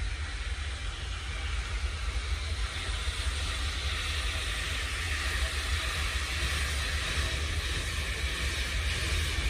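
A narrow-gauge steam locomotive approaching in the distance, its working exhaust a hissing haze that grows gradually louder from about three seconds in, over a steady low rumble.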